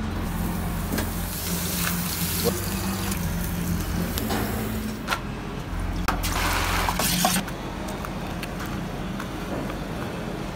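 Hot fat sizzling as sucuk cooks on a grill, over a steady low hum. About six seconds in comes a louder burst of hiss, lasting about a second and a half, as a wire basket of raw cut potatoes goes into the deep fryer's hot oil.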